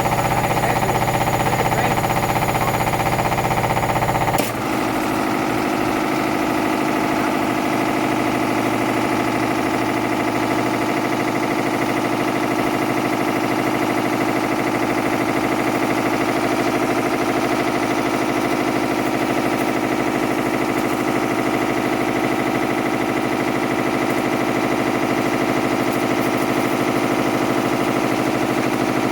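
Hotpoint washing machine's hotwired motor driving the drum at a steady high spin, with a fast rattle and knocking in the machine. About four and a half seconds in the sound changes abruptly, losing its deep hum, then runs steady again.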